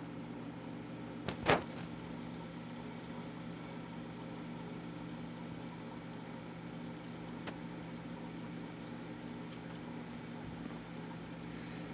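Steady low electrical hum of aquarium equipment such as the filter motor, with a single sharp tap about a second and a half in and a fainter one later.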